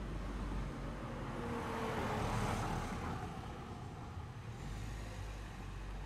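A vehicle passing by: a noise that swells to its loudest about two and a half seconds in, with a faint falling whine, then fades, over a steady low hum.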